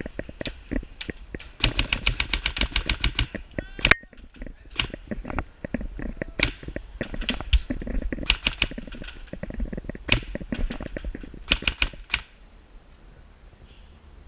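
Airsoft guns firing: a rapid full-auto burst of about a dozen shots a little over a second in, a sharp single crack near four seconds, then scattered shots and short bursts that stop about twelve seconds in.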